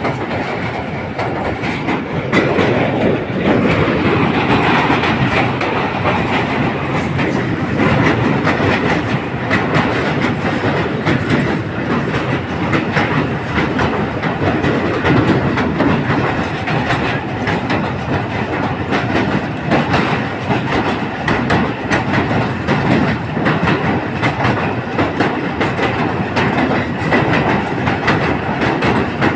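Passenger train running at speed, its wheels clattering steadily over the rails in a continuous rumble of rapid clicks, as it crosses a river bridge.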